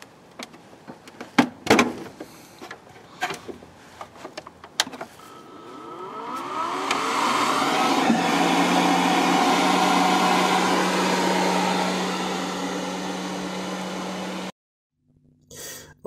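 A few clicks and knocks of handling, then an electric compost-aeration air pump starts, spinning up with a rising whine and running with a steady hum and rushing air. It cuts off abruptly near the end.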